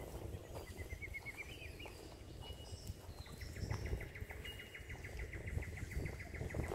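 Wild birds calling: a short rising run of chirps about a second in, then a long, rapid trill of evenly repeated notes, about ten a second, from about three seconds in, over a low background rumble.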